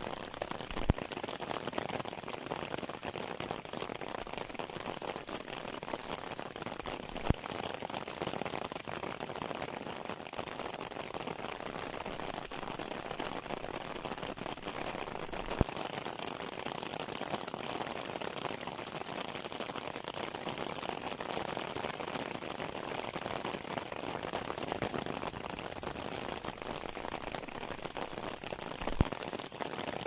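Steady rain falling, an even hiss throughout, with four sharp clicks several seconds apart.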